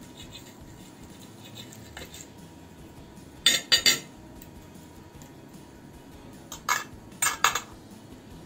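Metal knife and fork cutting a piece of crisp baked filo börek on a ceramic plate, clinking and scraping against it in two short clusters of sharp clicks, about three and a half seconds in and again about seven seconds in.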